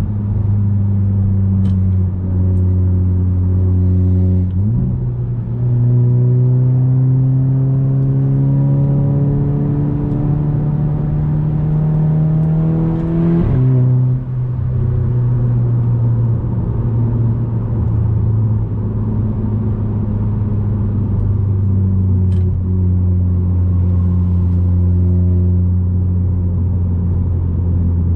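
Audi A3 8P 2.0 TFSI turbocharged four-cylinder with a 2.5-inch downpipe and catback exhaust, heard from inside the cabin while driving. The revs step up about five seconds in and climb steadily under acceleration for about eight seconds. They drop abruptly at a gear change near halfway, then the engine settles into a steady drone.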